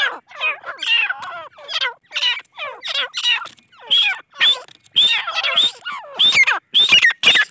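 Grey francolins (teetar) calling: a quick run of short, chirping calls, about two a second, that bend up and down in pitch, with several birds overlapping.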